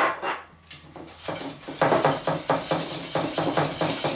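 A clatter of crockery at the start, then custard being stirred briskly in a metal saucepan: the utensil scrapes and knocks against the pot about four to five times a second.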